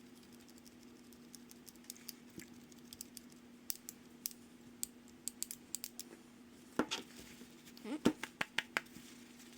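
Faint, scattered metallic clicks and taps of a Petzl Am'D locking carabiner being handled, its freshly lubricated gate worked open and shut to flush grime out of the hinge, with a quick run of clicks near the end.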